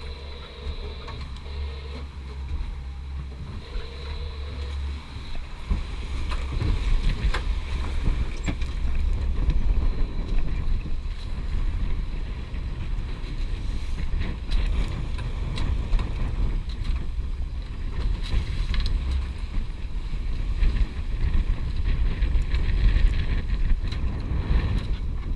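Wind buffeting the microphone over the rush of water past a sailing catamaran under way at speed, a gusty, continuous rumble.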